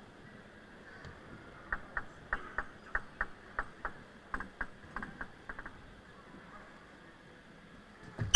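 A table tennis ball bouncing in a run of about a dozen light, evenly spaced clicks, roughly three a second and fading. A sharper, louder hit comes right at the end.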